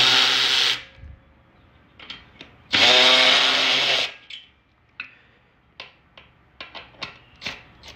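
Cordless electric ratchet (Milwaukee Fuel) running in two short bursts as it backs out the 12 mm bolts holding the stock exhaust on a Honda CRF110. The first burst is at the start and the second comes near the middle, with a few light clicks and taps between and after.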